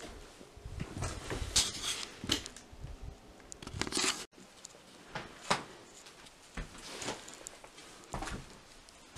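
Irregular footsteps crunching and shuffling over debris on old wooden floors, with scattered knocks and rustles; the sound breaks off for an instant about four seconds in.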